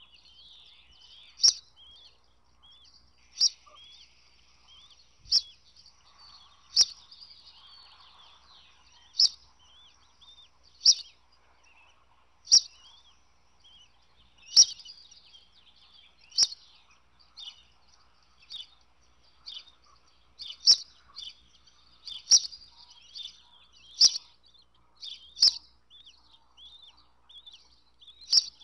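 Birds chirping: a sharp, high chirp repeated about every two seconds, coming faster in the second half, over fainter, continuous twittering.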